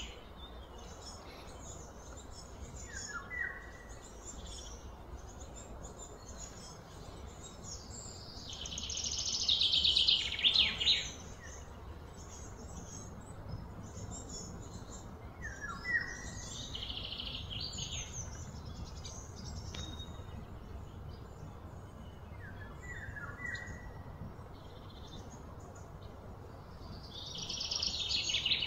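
Birds chirping and calling: scattered high chirps and a few short falling notes, with two louder, rapid pulsing trills that swell and then stop abruptly, one in the middle and one near the end.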